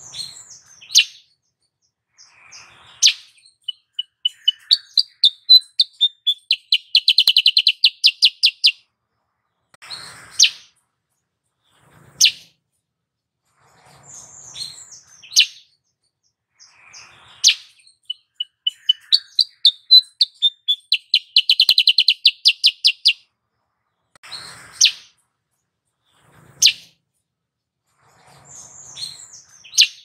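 Cucak kuricang (black-headed bulbul) calling: sharp single notes every second or two, and twice a run of high chips that speeds up into a fast trill, the phrase repeating about every 14 seconds.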